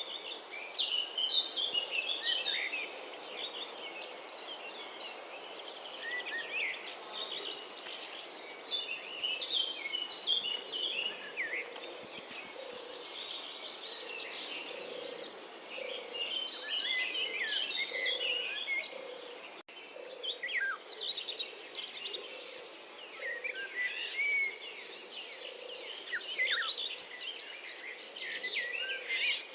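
European robin singing: phrases of thin, high, quickly changing warbles and trills with short pauses between them, over a steady outdoor background. There is a brief break about two-thirds of the way through where one clip is spliced to the next.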